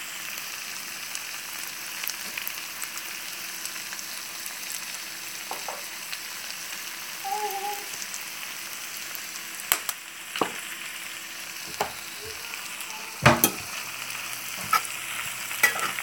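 Diced potatoes, onions, green peppers and sausage sizzling steadily in a cast-iron skillet. A metal slotted spoon knocks and scrapes against the pan several times in the second half as the hash is stirred.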